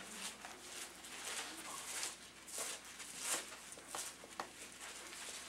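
Bible pages being leafed through: several soft rustles of thin paper, a few seconds apart.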